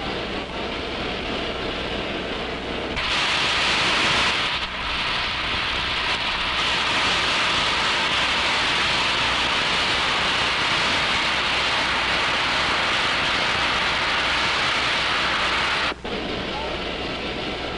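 Pere Marquette 1225, a 2-8-4 Berkshire steam locomotive, blowing off steam with a loud, steady hiss. The hiss starts about three seconds in and cuts off sharply about sixteen seconds in, over a quieter steady hiss.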